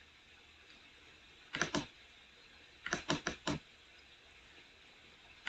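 A few sharp clicks at a computer, from its mouse or keys. A pair comes about a second and a half in, then a quick run of about four near the middle.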